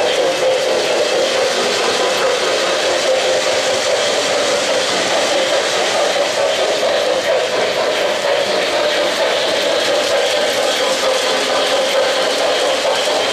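O-gauge model trains running on three-rail track: a steady whirring rumble of metal wheels and motors on the rails, with no clear beat.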